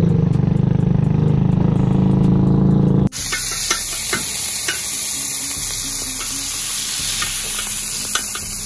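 A boat engine running steadily, then, after an abrupt cut about three seconds in, food sizzling in a frying pan with small pops and crackles.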